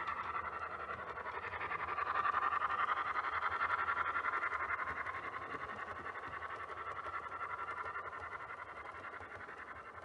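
Model A1 class steam locomotive with a DCC sound decoder, playing rapid steam chuffs through its small speaker as it runs round the layout. It is loudest a couple of seconds in, then slowly fades as it moves away.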